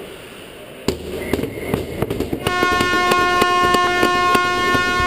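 Ice-arena goal horn sounding one steady note for about three seconds, signalling a goal. It starts about two and a half seconds in, over a burst of noise with sharp knocks that begins about a second in.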